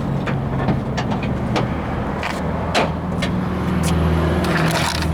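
Ford Bronco's fuel-injected 5.0-liter V8 idling steadily, with several sharp clicks and knocks over it.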